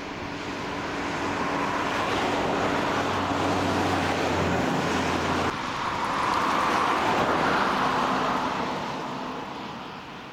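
Vickers VC10 jet airliner's four rear-mounted Rolls-Royce Conway engines running loudly as it departs along the runway, a steady jet roar with a whine that swells, dips briefly about five and a half seconds in, and fades near the end.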